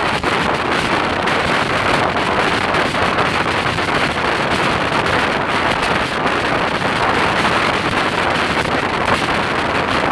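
Steady, loud wind rushing over the microphone of a camera on a motorcycle moving at road speed, covering the engine and tyre noise.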